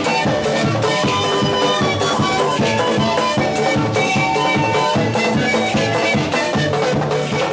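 Music with a steady drum beat and several held melody notes.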